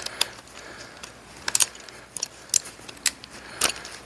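Sharp metallic clinks and clicks of hand tools being handled, a socket extension and ratchet among them, about eight spread unevenly with some in quick pairs.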